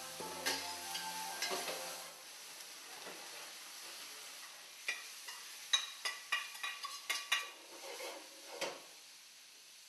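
Pike fillets and champignon mushrooms sizzling in olive oil in steel frying pans, a steady hiss. About halfway through, a run of sharp clinks and scrapes starts as a metal utensil works against the pan, lasting for several seconds.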